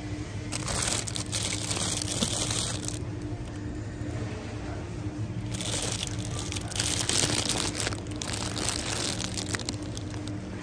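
Plastic bags of apples crinkling as they are handled, in two spells of a few seconds each, over a steady low hum.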